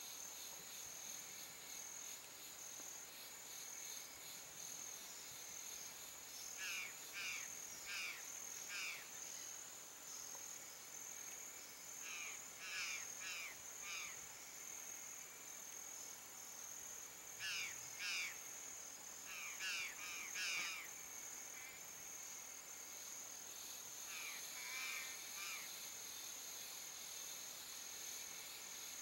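Field ambience: a steady high-pitched insect trill, with groups of two to four short chirping animal calls every few seconds.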